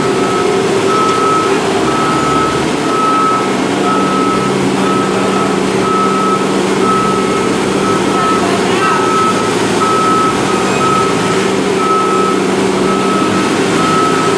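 Bobcat skid-steer loader's reversing alarm beeping about once a second over its engine running steadily.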